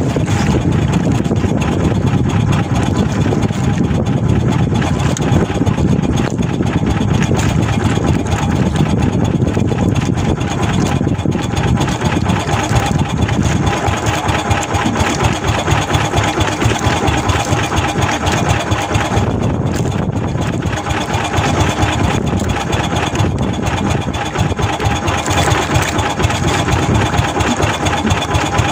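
Small fishing boat's engine running steadily.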